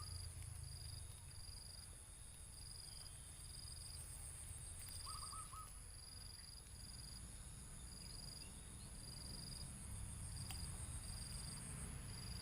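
Insects chirping: a steady high trill and short chirps repeating about once a second, with a brief call of four quick notes about five seconds in, over a low steady rumble.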